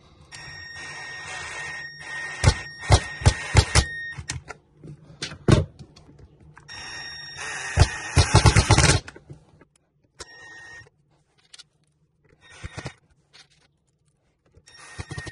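Milwaukee cordless impact driver whirring in two runs of a few seconds, driving small screws into a 3D-printed PETG part. Each run ends in a quick string of sharp knocks as the screw seats. A few shorter bursts follow.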